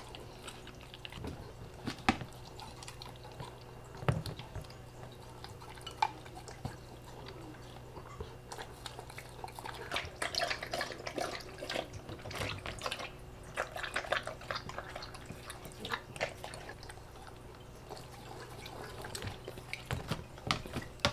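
A husky-malamute licking at its ceramic food bowl, with a few sharp knocks, then lapping water from a pet water fountain in quick wet laps through the middle, over a faint steady hum.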